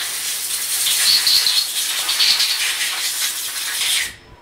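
Compressed-air blow gun hissing steadily as it blows chips and coolant off a freshly machined part in a CNC mill vise, cutting off sharply about four seconds in.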